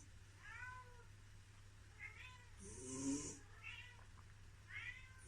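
A sleeping house cat snoring: one breathy snore about three seconds in, the loudest sound, and another starting at the very end. Between the snores come about four short, squeaky mews, each falling in pitch. These are sleep sounds that the owner takes for the cat dreaming.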